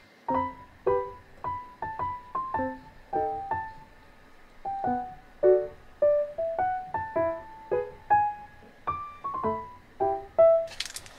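Background music: a gentle melody of single piano or electric-piano notes, each fading away, about two to three notes a second. A short burst of noise comes in near the end.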